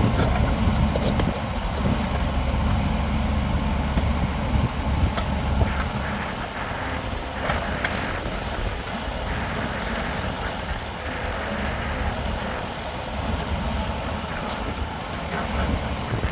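Heavy diesel engine running, strongest for the first six seconds or so and then easing off to a lower level.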